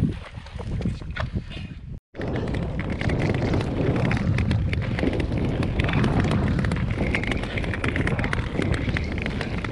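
Nordic tour skates gliding and scraping over natural black ice, a dense run of blade clicks and scrapes, with heavy wind rumble on the microphone. The sound drops out briefly about two seconds in.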